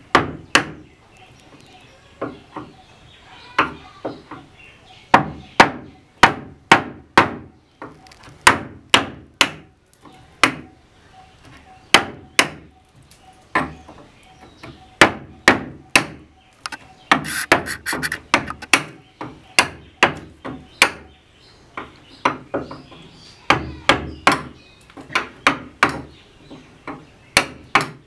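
Hammer striking the wooden handle of a chisel again and again, the chisel cutting into the edge of a wooden plank: sharp knocks, irregular and about one or two a second, with short pauses between runs.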